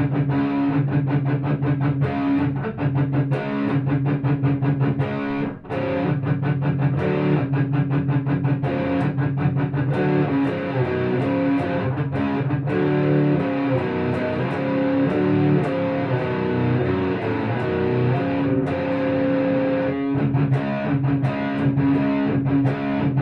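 Electric guitar with distortion playing a riff of chords in an alternate tuning, fast picked strokes with brief breaks about five seconds in and near the end.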